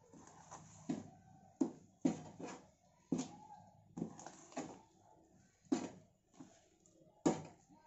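Metal spoon stirring thick lentil batter in a stainless steel bowl. The spoon knocks and scrapes against the steel at irregular moments, about once a second.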